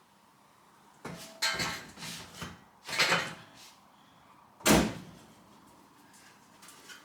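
Loose car parts being handled and set down: a run of clunks and rattles, with one heavier thud about five seconds in.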